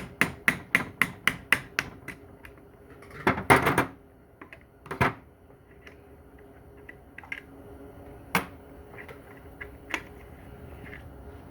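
Rapid light metal taps on a transmission part, about four a second, then a louder clatter and a few scattered knocks and ticks.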